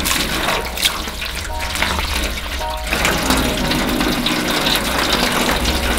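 Water running and splashing into a washing basin.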